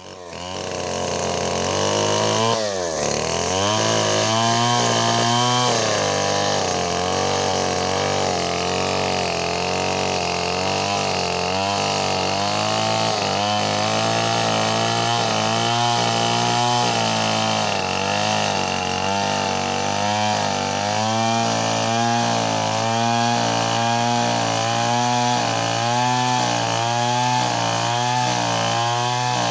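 STIHL chainsaw running at full throttle, ripping a coconut trunk along its length. The engine pitch wavers all the while as the chain loads and frees in the cut, with one sharp drop in revs and recovery about three seconds in.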